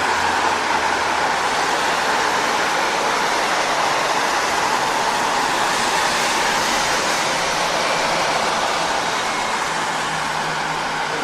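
Car tyres on a wet road: a steady hiss of water spray, swelling slightly about halfway through, over a faint low hum.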